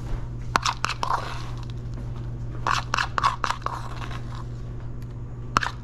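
A metal spoon scraping and clicking as chopped pecans are scooped from a plastic bowl and pressed into pastry shells in a metal mini-muffin tin. The clicks are scattered, with a cluster about three seconds in, over a low steady hum.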